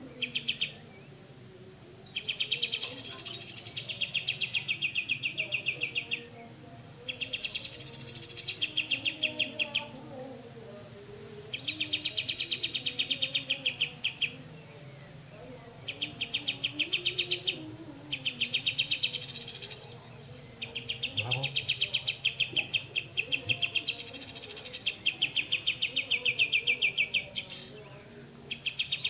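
Grey-cheeked bulbul (cucak jenggot) giving its 'besetan' song: bouts of two to four seconds, each a fast, even rattle of high pulses, repeated after pauses of about a second.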